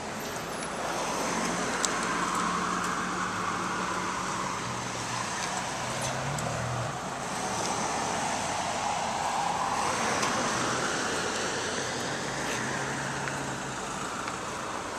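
Street traffic passing: the noise of vehicles swells and fades twice, over a low steady engine hum.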